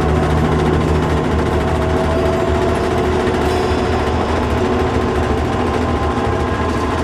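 Narrow-gauge diesel locomotive's engine running steadily under way, heard inside the driver's cab: a deep, even drone with a steady whine above it.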